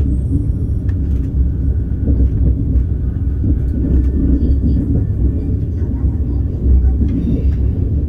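Cabin noise inside a KTX-Sancheon train under way: a steady low rumble of the train running on the track.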